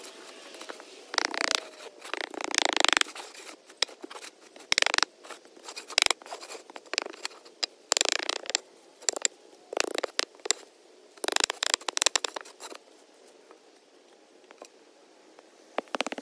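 A wooden board scraped across a bed of sand to level it, in a series of irregular scraping strokes with short pauses, then a lull near the end.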